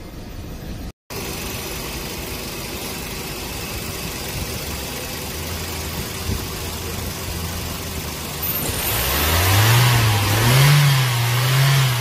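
Toyota petrol engine idling steadily, with a new cylinder 1 ignition coil and new spark plugs fitted, then revved up twice near the end, its pitch rising and falling.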